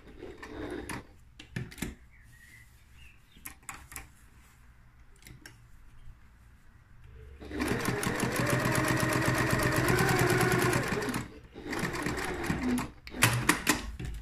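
Janome sewing machine running a fast straight seam through curtain fabric for about three and a half seconds, starting about halfway through and stopping abruptly. Before it there are faint clicks of the fabric being positioned under the foot, and after it a few sharp knocks.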